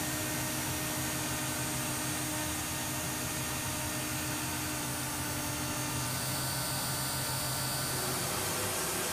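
Steady cockpit noise aboard a KC-135 Stratotanker: a low, even hum under a constant hiss, with a mid-pitched tone that drops out about two-thirds of the way through.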